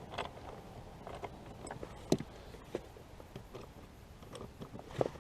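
Scattered small clicks and knocks of plastic trim pieces being handled and pushed into place on a motorcycle, with the clearest knocks about two seconds in and near the end.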